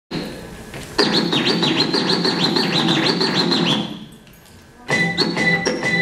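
Hip-hop music played from a DJ's mixer and decks, starting about a second in with a repeating pattern of short sweeping sounds. It drops out for about a second near the middle and then comes back in.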